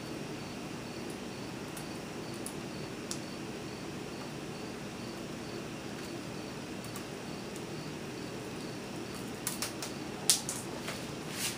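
Steady low room hum with a faint, regular high chirping, and a few light clicks near the end as hands handle the laptop's screen panel and lid.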